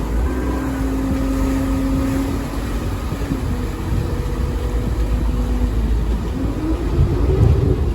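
A motor vehicle's engine running over a deep rumble. Its pitch holds steady, steps down a few times, and rises near the end.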